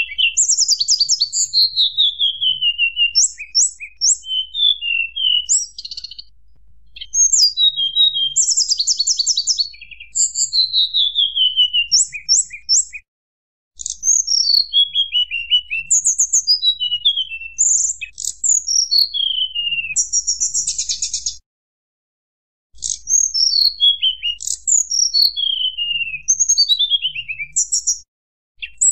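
Tledekan gunung singing in its flute-like 'nyuling' style. Rapid runs of high whistled notes, many sliding steeply downward, mixed with quick buzzy trills, broken by brief pauses about 13, 22 and 28 seconds in.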